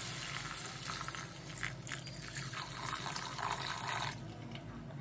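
Water poured in a steady stream into a clay kadhai of sautéed potato and tomato, splashing as it fills the pan; the pouring stops about four seconds in.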